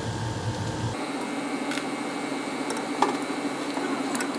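A few light clicks and knocks from hands working at the plastic terminal cover of a Copeland scroll compressor, over a steady background hum.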